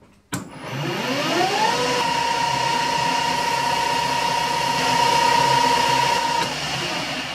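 Metal lathe started with a click, its spindle and collet chuck running up to speed with a rising whine, then running steadily. Near the end the steady tone stops and the spindle begins to wind down.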